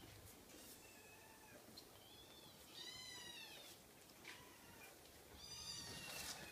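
Cream Scottish fold kitten mewing: several thin, high-pitched mews that rise and fall. The clearest comes about three seconds in and another near the end, with a few faint clicks between them.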